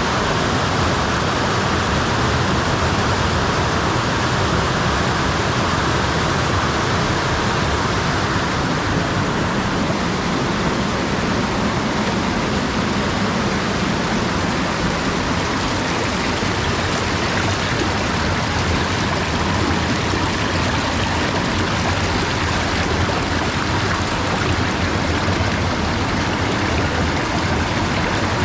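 Waterfall running: a steady, unbroken rush of water.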